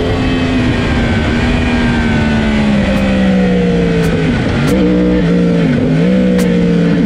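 Racing superbike engine heard from on the bike, its pitch sliding steadily down as the rider brakes hard from about 125 mph. It then goes through quick downshifts, the revs jumping up with each one, before settling at a steady pitch in second gear. Heavy wind rush runs underneath.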